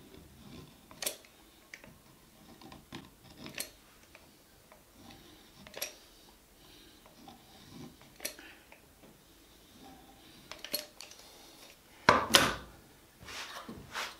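Metal caulking gun clicking and clacking as its trigger is squeezed and released to push adhesive into drilled holes, a sharp click every two seconds or so, with a louder metal clatter near the end.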